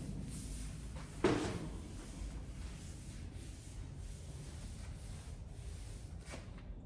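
Steady rubbing, scraping noise, with one louder scrape about a second in.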